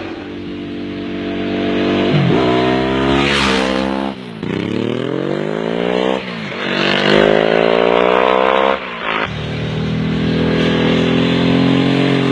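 Ducati 999 Superbike's L-twin engine accelerating hard through the gears. Its pitch climbs, then drops sharply at each upshift, three times.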